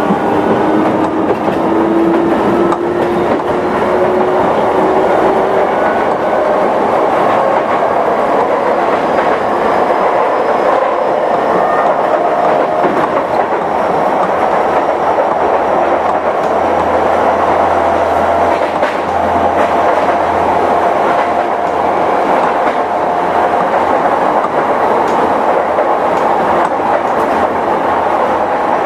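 Sotetsu 11000 series electric train heard from inside its motor car: the Mitsubishi IGBT-VVVF inverter and traction motors whine, rising slowly in pitch over the first few seconds as the train gathers speed and then holding steady. Underneath is a steady rumble of wheels on rail with light clicks.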